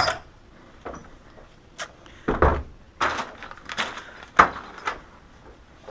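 A string of separate knocks and clicks, about eight of them, from small objects being handled and set down; the loudest comes about four and a half seconds in.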